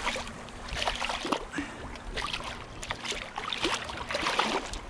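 A striped bass thrashing on the surface of shallow water as it is landed: a run of short, irregular splashes.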